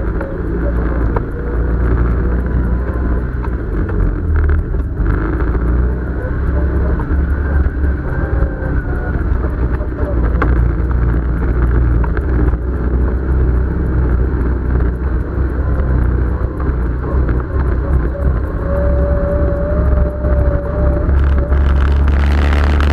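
Off-road vehicle engine running steadily under way on a rough dirt trail, a loud low drone mixed with trail and chassis noise, growing louder and brighter near the end.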